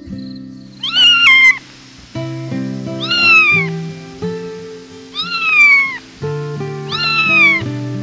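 Kitten meowing: five short high meows, each falling in pitch, the first two in quick succession, over background music.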